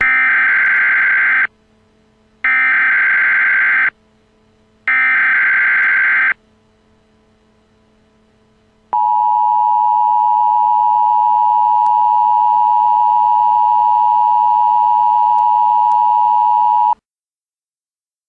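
Emergency Alert System tones: the digital SAME header sent three times as bursts of warbling data tones, each about one and a half seconds long and a second apart. Then the steady two-tone attention signal holds for about eight seconds and cuts off, heralding a child abduction emergency message.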